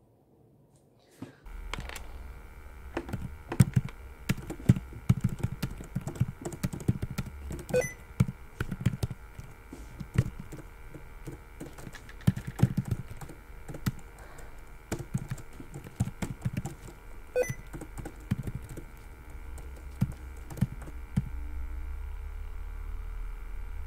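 Computer keyboard typing in irregular runs of keystrokes, starting about a second and a half in, over a steady low hum.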